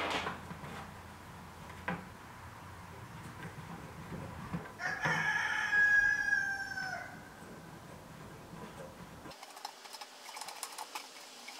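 A rooster crows once, starting about five seconds in: a drawn-out call of about two seconds that drops in pitch at the end. Faint clicks and knocks come from hands working on a plastic bucket.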